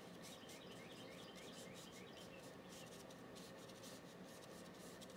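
Faint rubbing of a paintbrush stroking paint onto paper, in irregular strokes over near-silent room tone.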